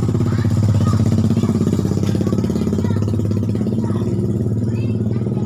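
A motor running steadily with a fast, even pulse and a strong low hum.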